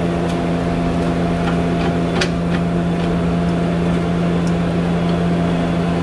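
Steady mechanical hum from shop machinery, with a few light metallic clicks, the clearest about two seconds in, as a pry bar works the front brake caliper loose from its bracket.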